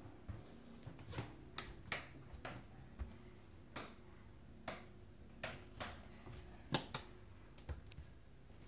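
Irregular sharp clicks and taps of footsteps on bare wooden floorboards, about a dozen, the loudest a little before the end.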